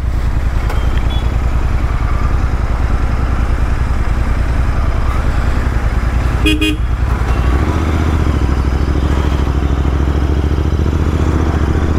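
Royal Enfield Interceptor 650's parallel-twin engine running as the bike rides along. A vehicle horn beeps briefly about six and a half seconds in, and the engine's low note changes about a second later.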